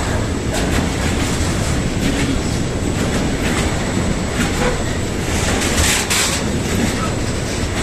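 Intermodal container freight train rolling past, its wagon wheels running with a steady rumble and clattering over the rail joints, with a louder burst of clatter about six seconds in.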